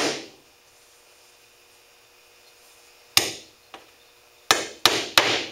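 Hammer tapping steel nails through a beaver hide into a wooden board to stretch it. There is one tap at the start, then from about three seconds in a tap, a light knock and three quick taps near the end, each a sharp knock with a short ring.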